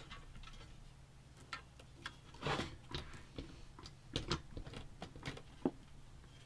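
Irregular light clicks and taps with a few short scrapes: hands working cables and parts into a small computer case.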